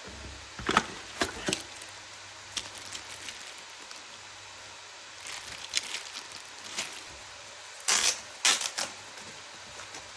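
Scattered handling clicks and short rustles while a mini mechanical keyboard is unboxed, over a steady hiss. The loudest come in a cluster near the end.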